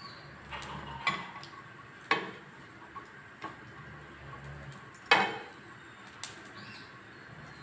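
A steel spoon stirring cashews and raisins frying in ghee in a nonstick frying pan, knocking and scraping against the pan at irregular intervals about a second apart. The loudest knock comes about five seconds in.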